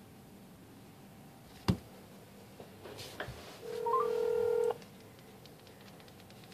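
A phone being handled during a call attempt: one sharp click about a second and a half in, a few soft taps, then a steady electronic phone tone with a few short stepping beeps that lasts about a second and cuts off.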